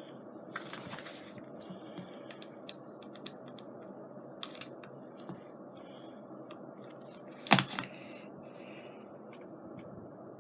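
Small scattered clicks and taps of craft pieces being handled on a work table, with one much louder sharp knock about seven and a half seconds in, over a steady low hum.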